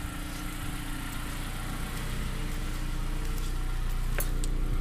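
A compact SUV's engine idling with a steady hum, growing a little louder toward the end.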